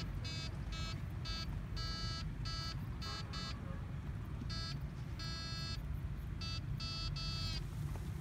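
An electronic buzzing tone switching on and off in a dozen or so short bursts, each a few tenths of a second long, with a pause about four seconds in. A steady low rumble runs underneath.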